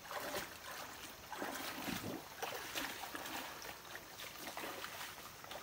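Shallow creek water splashing and sloshing in irregular surges, with short sharp splashes over a steady trickle.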